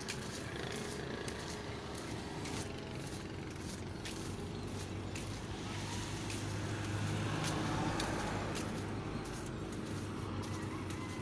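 A motor vehicle's engine hum, steady and growing louder about seven to eight seconds in, then easing off.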